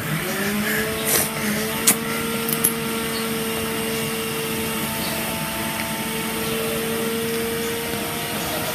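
A small electric motor switches on and spins up within about half a second, then runs with a steady hum over an airy hiss. A few light clicks come in the first few seconds.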